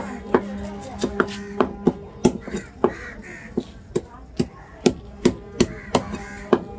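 A large knife scaling a sankara (red snapper) fish against a wooden cutting block, in quick repeated strokes that each give a sharp click, about three a second.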